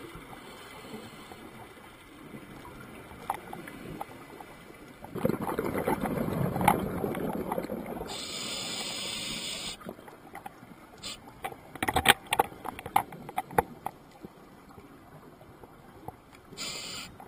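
Underwater scuba breathing through a regulator: a gurgling rush of exhaled bubbles about five seconds in, then a steady hiss of inhaled air. Scattered clicks and crackles follow, and a second short hiss comes near the end.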